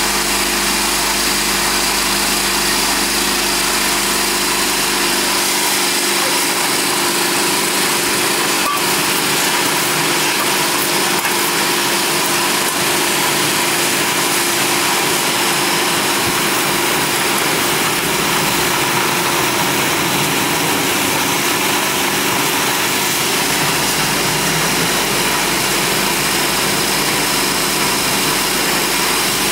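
Steady running noise of the machinery on an instant-rice extrusion processing line: a loud, even mechanical noise with several constant hum tones underneath, unchanging throughout.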